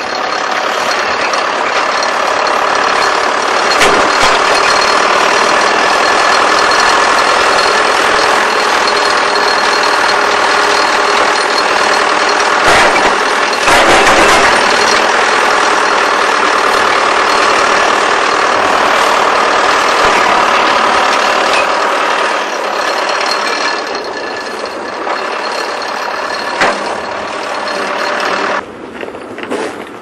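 A large engine running steadily at close range, dropping off sharply near the end.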